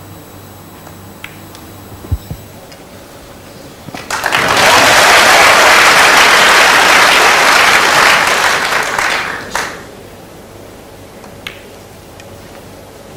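Snooker arena crowd applauding a shot, starting about four seconds in, holding for about five seconds and then dying away. A couple of soft knocks come about two seconds in.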